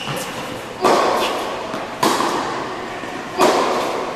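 Tennis ball hit back and forth in a rally: three sharp ball strikes about a second and a half apart, each followed by the ringing echo of an indoor tennis hall.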